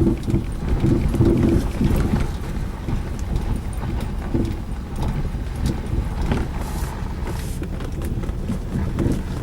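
Mazda 6 on the move: a steady low road rumble with repeated knocks from the front suspension. The knock is still there after the right inner CV joint was redone, so the joint was not its cause.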